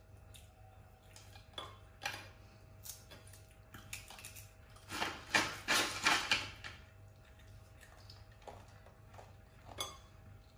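Light tabletop clatter of plastic drinking straws and cups: scattered clicks, then a louder run of rattling about five seconds in that lasts over a second.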